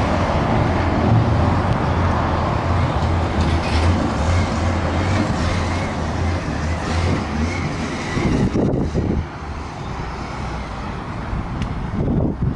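Diesel engine of a 2004 Case 580SM+ loader backhoe running with a steady low hum, dropping a little quieter about nine seconds in.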